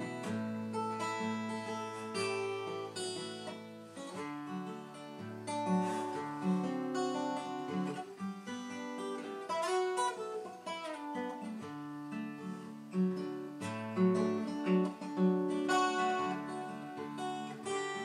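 Twelve-string acoustic guitar played solo, picked melody over bass notes, with a quick run of notes about ten seconds in.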